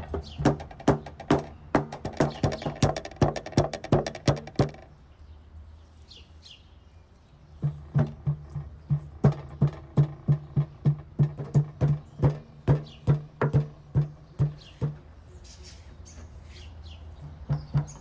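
Rapid series of sharp knocks, three to five a second, each with a dull thud, in runs broken by pauses of a few seconds.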